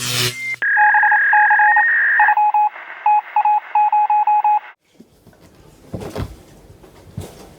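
Electronic telephone-line tones: a steady high tone with a run of short, evenly repeated beeps, stopping about five seconds in. Faint handling rustles follow.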